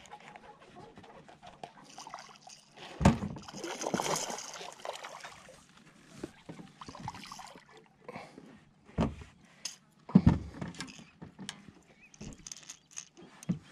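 A hooked largemouth bass being fought and brought alongside a small boat: water splashing and sloshing, with sharp thumps about three seconds in, around ten seconds in and near the end.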